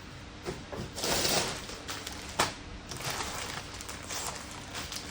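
Plastic packaging and clothing being handled, with irregular rustling and crinkling and one sharp snap about two and a half seconds in.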